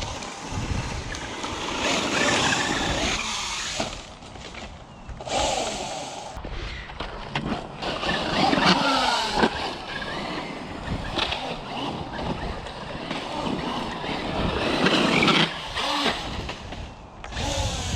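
Traxxas UDR RC desert truck being driven on dirt: its brushless electric motor whines up and down in pitch with the throttle, along with tyre and dirt noise.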